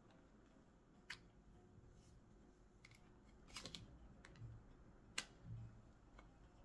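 Faint clicks and soft taps of oracle cards being handled and laid down onto a card spread on a cloth: about five sharp clicks, the loudest a little after five seconds, with a couple of soft low thumps between them.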